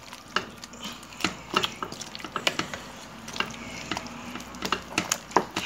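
A spoon clicking and scraping against a cooking pot in irregular knocks, a sound typical of stirring a soup as dissolved cocoyam thickener is mixed in.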